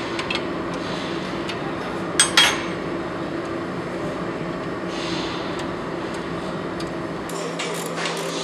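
Wrench working on the strut-to-steering-knuckle bolts of a car's front suspension: faint clicks, with two sharp metallic clinks a little over two seconds in, over a steady background hum.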